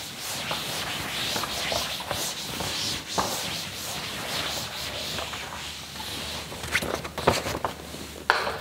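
A cloth duster rubbed in repeated strokes over a chalkboard, a hiss that swells and fades with each wipe. Near the end a few sharp taps and scrapes as chalk is put to the board.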